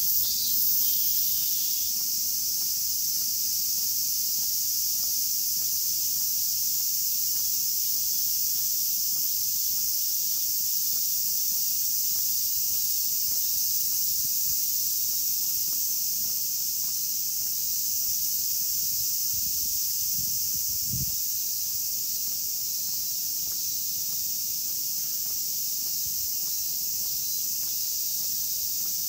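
Cicadas droning steadily in the park trees, a continuous high buzz, with faint regular footsteps on the paved path beneath it.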